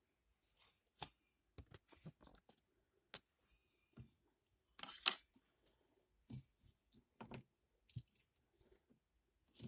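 Handling of small candy-toy packaging and paper inserts: irregular crinkling and rustling with scattered clicks and taps, the loudest rustle about halfway through.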